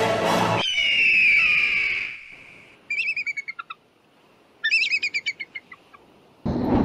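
Orchestral music cuts off just after the start. Then come bird calls: one long falling cry, followed by two quick runs of rapid chirping calls, each run dropping in pitch. Near the end a steady rush of outdoor noise begins.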